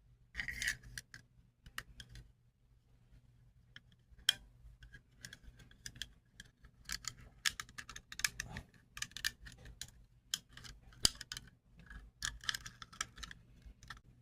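Small plastic and metal parts clicking, tapping and scraping in the hands, irregularly, as a Tyrant magazine extension and its spring are fitted onto a Glock 26 magazine.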